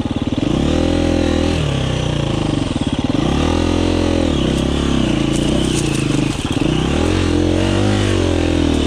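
2019 KTM 350 EXC-F's single-cylinder four-stroke engine running under load. Its revs surge and drop several times as the bike works up a steep, loose, rocky climb with almost no traction.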